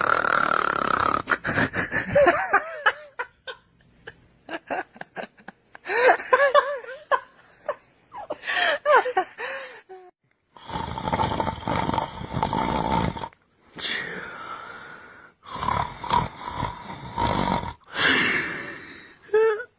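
A person snoring in several long, rasping stretches, alternating with a baby's squealing giggles and laughs.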